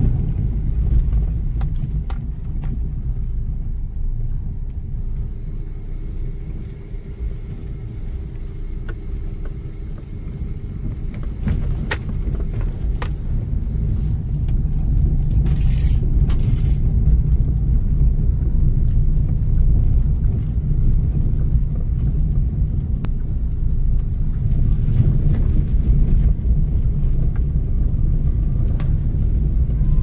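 Low, steady rumble of a car driving slowly along a road, engine and tyre noise heard from inside the vehicle, growing louder from about halfway through. Two brief hisses come around the middle.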